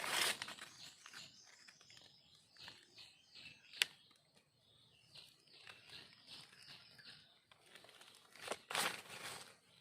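Dry leaf litter rustling and crackling in bursts as someone moves through it by hand or foot, loudest at the start and again near the end, with a single sharp click about four seconds in.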